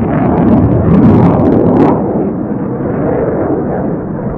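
Jet noise from a Lockheed Martin F-22 Raptor's twin F119 turbofan engines as it flies past: a loud rumble with crackling through the first two seconds, then a steadier, slightly quieter rumble.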